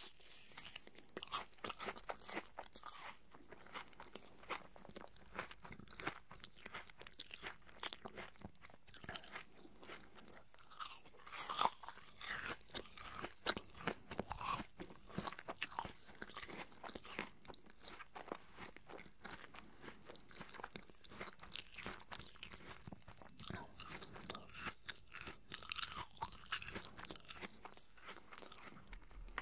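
Close-miked chewing of crisp, juicy apple slices: irregular wet crunches and mouth clicks, with a louder crunch about twelve seconds in.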